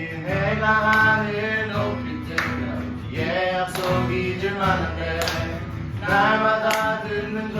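Male voices singing a Korean worship song over instrumental accompaniment, long held sung notes changing about every second.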